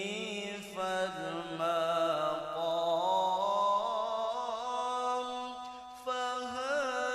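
A solo voice chanting a slow, melismatic Islamic religious melody, with long held notes that waver and slide between pitches.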